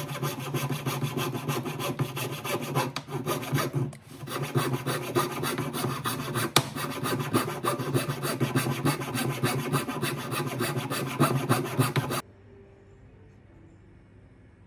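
Fine-bladed hand saw cutting into a wooden paintbrush handle in quick, even back-and-forth strokes, with a short pause about four seconds in. The sawing stops suddenly about twelve seconds in, leaving quiet room tone.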